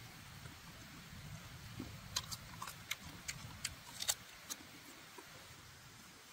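A run of about a dozen sharp, irregular clicks and snaps, clustered between about two and four and a half seconds in, over a low steady rumble.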